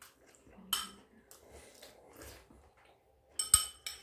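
Metal spoon clinking against a ceramic bowl while eating: one ringing clink about a second in, then a quick cluster of several clinks near the end.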